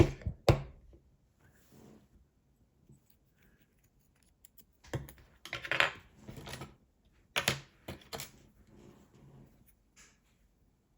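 Small metal clicks and a short scraping rattle from handling the parts of a disassembled euro cylinder lock: its plug, pins and tools. There is a sharp click about half a second in, a longer rattle around the middle, then a few more sharp clicks.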